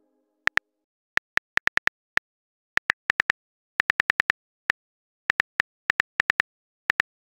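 Typing sound effect: short, sharp keyboard clicks in irregular runs of two to six, with short pauses between the runs.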